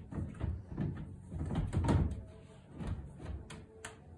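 In-wall speaker module being pushed and fitted into its wall frame: a run of knocks, scrapes and thumps, heaviest about two seconds in, then a couple of sharp clicks near the end.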